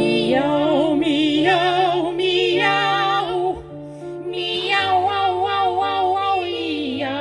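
Female operatic singing with wide vibrato, amplified through microphones, over a piano accompaniment. Two sung phrases, with a short break just past halfway.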